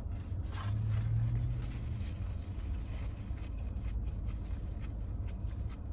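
Steady low hum of a car's air conditioning running in a parked car, heard inside the cabin, with a few faint clicks and scrapes of eating.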